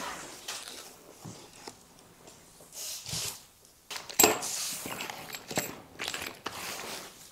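Plastic parts bags and bubble wrap rustling and crinkling as small parts are handled, with scattered light clicks and one sharp knock about four seconds in.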